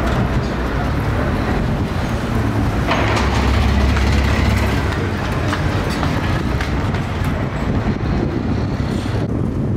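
Steady city street traffic noise. A minibus taxi drives past close by about three seconds in, its engine and tyre rumble swelling and then fading.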